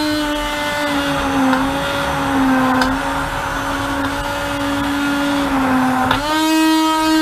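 Hand-held immersion blender running in a stainless pot, puréeing thick potato soup. Its steady motor whine dips in pitch a few times and climbs back up with a click about six seconds in.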